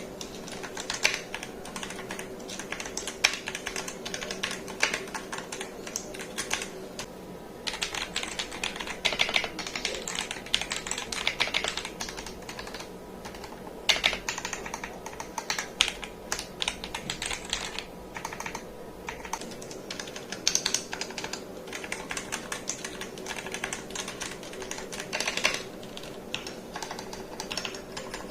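Typing test on an Akko 5075S custom mechanical keyboard: a fast, uneven run of key clacks, broken by two brief pauses, demonstrating the sound of its switches.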